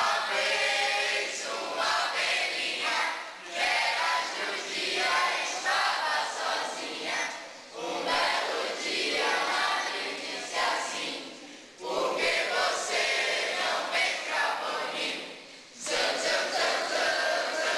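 A group of young people singing together in phrases of about four seconds, with a short pause between phrases.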